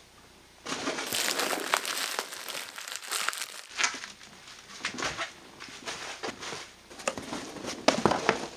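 Bubble wrap crinkling and crackling as bubble-wrapped lenses are handled and lifted out of a cardboard box. It starts under a second in and is dense for about three seconds, then comes in scattered crackles.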